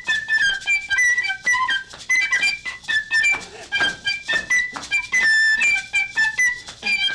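A small whistle-type wind instrument playing a quick tune of short, separate high notes, with maracas shaking along in rhythm.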